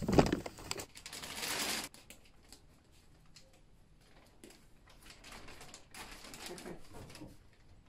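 Rummaging in storage bags: plastic and woven bags rustling and crinkling, loudest for about a second near the start, then faint scattered rustles and clicks as a cushion cover is pulled out.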